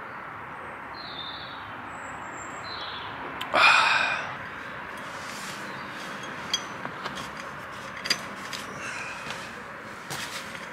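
Quiet evening woodland background with a few faint high chirps, one short loud rushing burst about three and a half seconds in, then scattered small clicks and rustles of a person handling gear and moving about a campsite.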